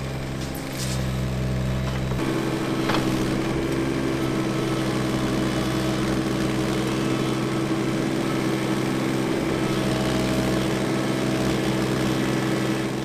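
Case CX17C mini-excavator's diesel engine running steadily as the machine digs. Its note changes about two seconds in.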